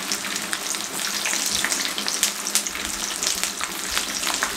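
Minced-meat chapli kababs and halved green chillies shallow-frying in hot oil in a pan: a steady sizzle with dense, fine crackling.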